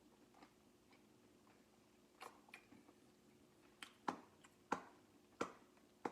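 Quiet wet mouth smacks and clicks of someone chewing a fried chicken sandwich: a run of short, sharp smacks that come louder and closer together from about four seconds in, over a faint steady hum.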